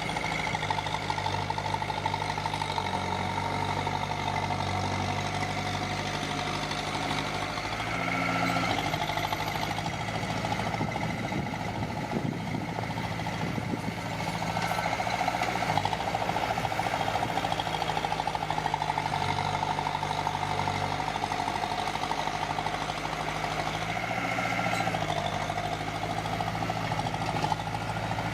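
Diesel engine of heavy earthmoving machinery running steadily, its pitch and loudness shifting up and down a few times as the machine is worked.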